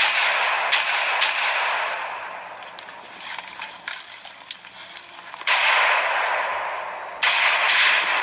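Three rifle shots in quick succession, then a quieter stretch with small clicks. About five and a half seconds in comes a sudden loud blast of noise, and another near the end: a Tannerite-packed lawn mower exploding after being shot.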